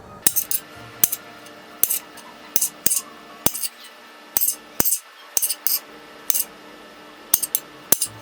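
A run of sharp clinks and taps, about fifteen at an uneven pace with some in quick pairs, like utensils or dishes knocking together, over faint background music.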